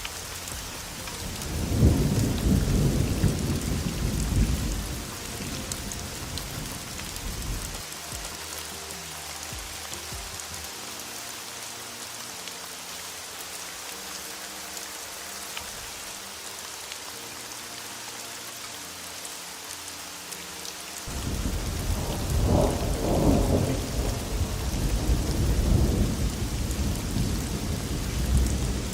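Heavy rain hissing steadily, with two long rolls of thunder: one rumbling up about two seconds in and dying away by about eight seconds, and another starting about two-thirds of the way through and running on to the end.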